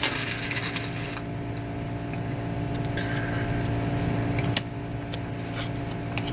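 A foil trading-card pack crinkling as it is opened for about the first second, then a few light clicks of cards being handled, over a steady low mechanical hum.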